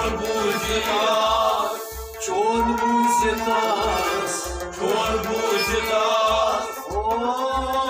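Kashmiri Sufi song: male voices singing long held phrases over harmonium, plucked Kashmiri rabab and a bowed sarangi, with a steady low drum beat about twice a second.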